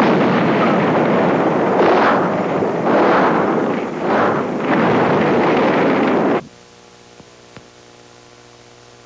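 Gasoline explosion and fire from a film soundtrack: a loud, dense rushing noise that swells and ebbs several times, then cuts off suddenly about six seconds in, leaving a faint steady hum.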